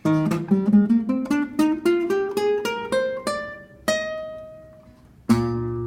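Solo guitar introduction: a run of single plucked notes climbing steadily in pitch, about four a second, then one note left to ring, and a strummed chord near the end.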